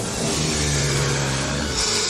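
Animated-film sound effect of a magic spell taking hold: a loud, deep, steady rumbling drone that stops shortly before the end.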